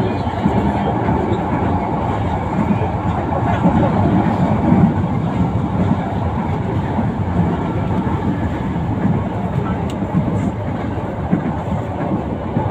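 Manila LRT Line 1 light-rail train running between stations, heard from inside the carriage: a loud, steady noise of the car in motion.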